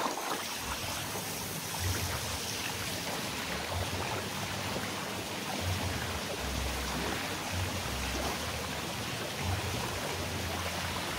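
Swimming-pool water running and splashing, a steady, even rush like a small stream, with low rumbles of wind on the microphone coming and going.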